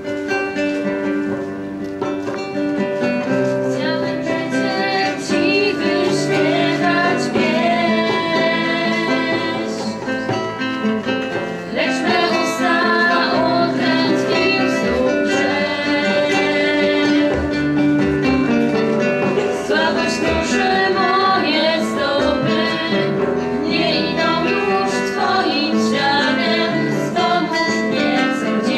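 Live worship song: a woman singing with acoustic guitar strumming and a hand drum keeping a steady beat.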